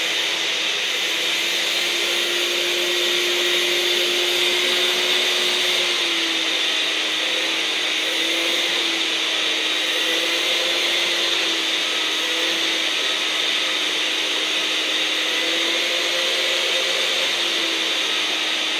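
Vacuum cleaner (hoover) running steadily, used to groom a Labradoodle's coat. Its motor tone drops slightly about six seconds in and wavers a little from then on.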